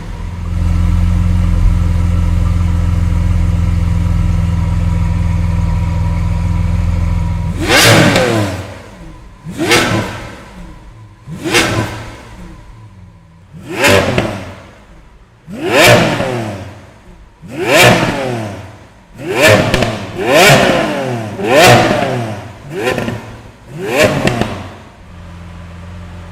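Lamborghini Aventador SV's 6.5-litre naturally aspirated V12 running steadily and loudly for about seven seconds. It is then revved in about eleven sharp blips, each rising and falling quickly in pitch, coming closer together toward the end. Near the end it settles to a quieter idle.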